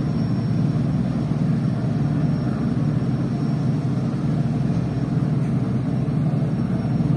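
Ship's engines and machinery running, a steady low rumble without a break.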